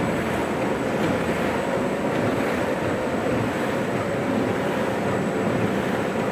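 Plastic bag cutting machine running, a steady, even machine noise with no breaks.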